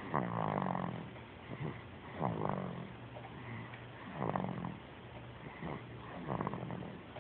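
Snoring: four snores about two seconds apart, each falling in pitch.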